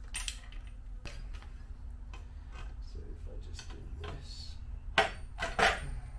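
Metal clinks and taps of multi-grip pliers working a nut on a steel bar, with two louder metallic knocks about five seconds in.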